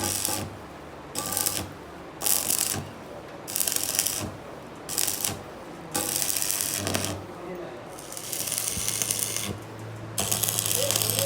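Metal being worked with a workshop tool in repeated short bursts of rasping noise. There are about eight bursts, some under half a second and later ones lasting a second or more.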